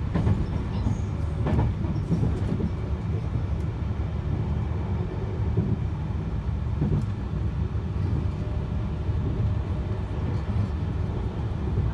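Cabin running noise of a JR East E651 series electric multiple unit train at speed: a steady low rumble of wheels on rail, with a few faint clicks.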